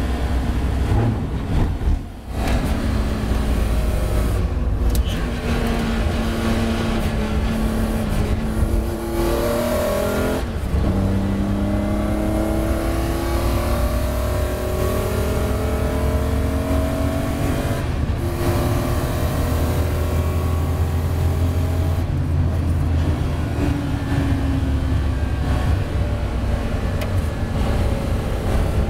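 BMW M3 race car engine heard from inside the cockpit at speed, loud and rumbling. The revs climb and drop as it is driven through the gears, with a short lift off about two seconds in and a long rising pull in the middle.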